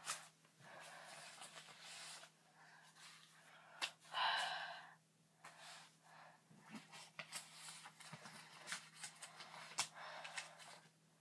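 Faint rustling and crinkling of a handful of paper bills, with soft breathing. About four seconds in comes one short, louder breathy vocal sound.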